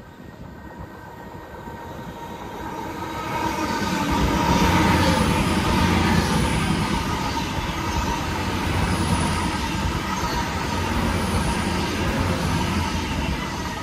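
A GWR Hitachi Intercity Express Train passes close by on diesel power, with the sound of its underfloor engines and wheels on the rails. The sound builds over the first four seconds or so, then stays loud as the long train of carriages goes by, with a steady hum and a whine in it, easing a little near the end.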